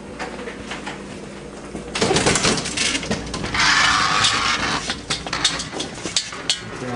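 A dog's metal chain rattling and clinking, with scuffling and rustling. It grows loud about two seconds in and is densest between three and a half and five seconds.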